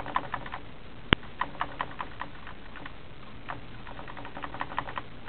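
Computer keyboard keystrokes: an irregular run of short clicks, with one sharper click about a second in.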